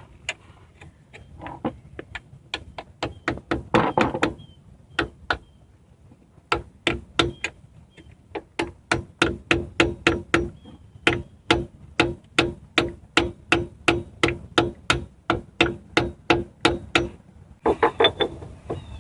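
A hammer tapping the pinion oil seal into a Dana 30 differential housing: a long run of sharp metallic strikes, about three a second, each with a short ring.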